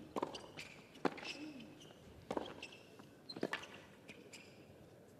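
Tennis rally on a hard court: four racquet-on-ball hits about a second apart, with short squeaks of shoes on the court between the shots.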